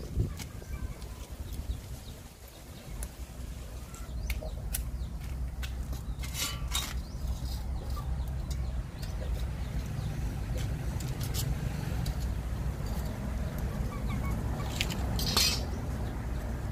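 Wood fire crackling in a cement firewood stove, with a steady low rumble of wind on the microphone and chickens clucking. Two louder, sharper sounds stand out, about six and a half and fifteen seconds in.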